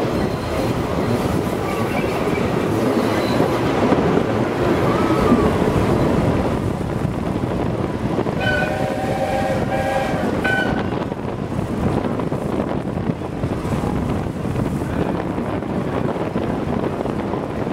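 Steam-hauled passenger train running, heard from a coach window behind a 4-8-2 steam locomotive: a steady rumble of wheels on the rails with wind. About halfway through, the locomotive's whistle sounds a chord of several notes for about two seconds.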